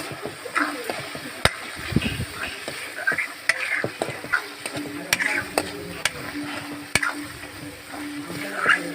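Chicken frying in masala in a pan, sizzling while a spoon scrapes and knocks against the pan at irregular intervals as it is stirred.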